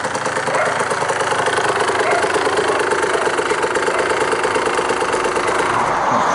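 Suzuki TS200R enduro motorcycle's single-cylinder two-stroke engine running steadily at idle, a rapid even beat of firing pulses.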